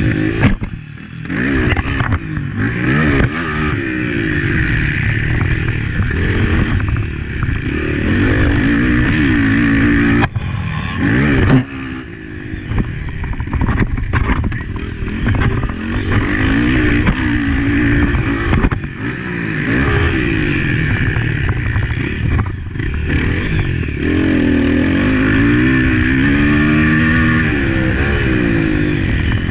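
Honda CRF250F four-stroke single-cylinder dirt bike engine racing, revving hard and backing off again and again as it is ridden through the corners and jumps of a motocross track, with a few brief throttle chops and a couple of sharp knocks about ten and eleven and a half seconds in.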